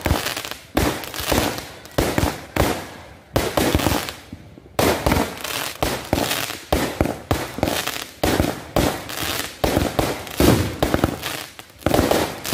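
Aerial fireworks going off in quick succession: sharp bangs, each trailing off, about two a second, with a pause of about a second a little before the middle.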